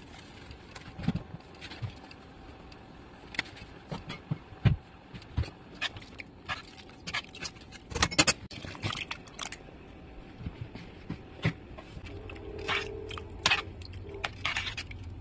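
A spoon clinking and scraping against a metal soup pot while the soup is stirred: irregular sharp clicks and knocks. A low steady hum joins about twelve seconds in.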